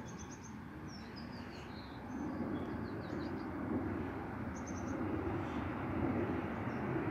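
Distant, steady low rumble of a Boeing 737 airliner's jet engines passing high overhead, swelling and growing a little louder toward the end. Small birds chirp in short high trills over the rumble.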